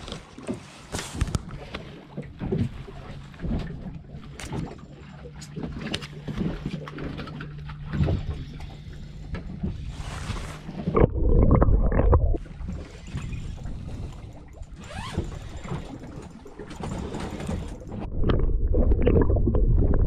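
Boat-deck sounds picked up by an action camera: a run of knocks and clatter over a steady low hum, then loud low rumbling about eleven seconds in and again near the end.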